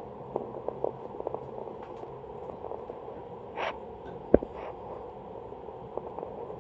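Hunter Low Profile 52-inch ceiling fan running with a steady hum, with scattered light clicks and one sharper knock about four and a half seconds in.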